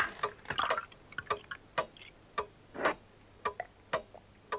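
Foil lid crackling as it is peeled back from a plastic cup of chocolate milk drink, then a series of irregular sharp clicks and short liquid sounds as the drink is poured and drunk.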